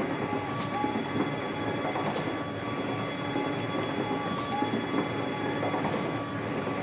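Epson SureColor S50610 wide-format printer printing a banner: the print-head carriage runs back and forth along its rail with a steady whirr, and a sharp click comes about every one and a half to two seconds.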